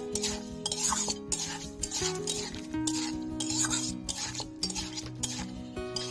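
Metal spatula stirring and scraping pineapple pieces around a metal kadai in repeated strokes.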